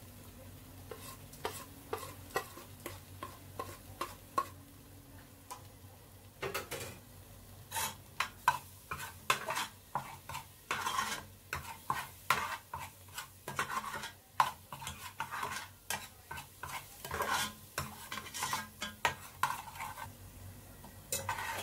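A long-handled metal spoon stirring and scraping around an aluminium cooking pot, where ground spices and a bay leaf fry in oil and meat juices with a light sizzle. Light taps at first, then brisker, louder scraping strokes from about six seconds in.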